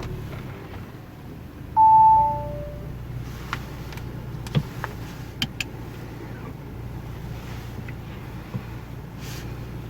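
Audi S5 V6 engine idling steadily between revs. About two seconds in, a two-note electronic chime sounds, high note then lower. A few light clicks follow midway.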